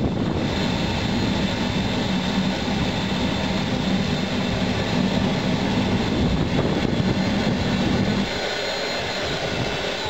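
Forced-air waste-oil furnace burner firing: a steady roar of atomised oil flame and air blast, with a low hum running under it. About eight seconds in, the hum drops out and the roar continues a little quieter.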